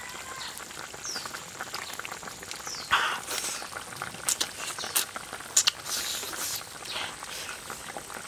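Close-up eating sounds: wet chewing, smacking and slurping of a mouthful of spicy braised pork intestine and fish with rice, with a cluster of sharp clicks and smacks from about three to six and a half seconds in.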